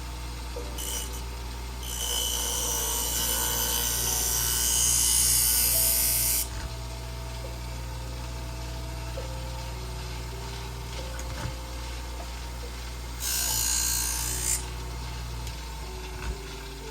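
Twice As Sharp scissor sharpener's motor running steadily while a kitchen-shears blade is drawn across its 240-grit diamond wheel. The grind starts about two seconds in and lasts about four seconds, and a shorter grind follows near the end. This is a sharpening pass made to raise a burr on the edge.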